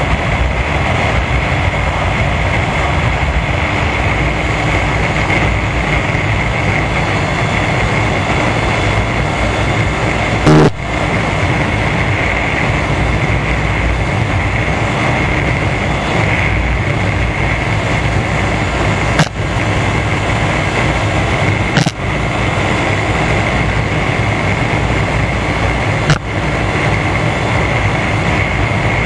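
Wind rush and the Yamaha Fazer 25's single-cylinder engine running steadily at highway speed, heard from on the motorcycle. Four brief dips in the level break the steady noise.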